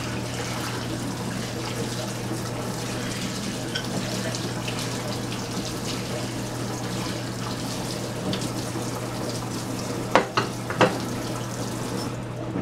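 Kitchen faucet running into a stainless steel sink while a metal gas-stove part is rinsed under the stream. About ten seconds in come three sharp knocks, the loudest sounds. The water is shut off near the end.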